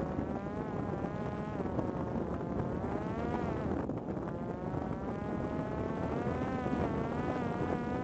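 Parrot Disco's electric motor and rear pusher propeller buzzing in flight, its pitch wavering up and down as the drone flies past, over a low rumble of wind noise.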